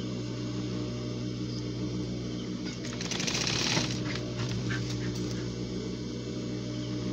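Industrial sewing machine with its motor humming steadily, then stitching briefly in a quick run of needle strokes about three seconds in, lasting under a second.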